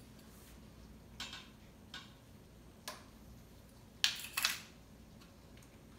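Short clicks and scrapes of a spice container and measuring spoon as white pepper is measured out and added to the pot. A few light clicks come first, then a louder rasping pair about four seconds in.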